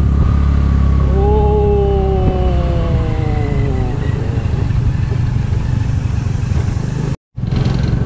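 Scooter engine running under wind and road rumble while riding over a rough dirt track. A long, smoothly falling tone sounds about a second in, and the sound drops out briefly near the end.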